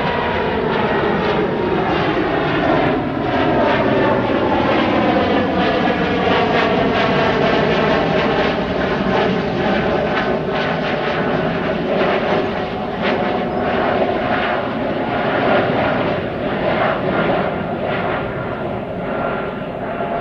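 Embraer E195-E2 twin-engine jet climbing out after takeoff at climb power: a loud jet rumble with a crackling edge. Several whining engine tones slide down in pitch over the first few seconds as it passes, then hold nearly steady as it climbs away.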